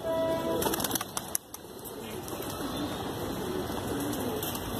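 Domestic desi high-flyer pigeons cooing, with low wavering coos repeating through the second half. A short clatter of sharp clicks comes about a second in.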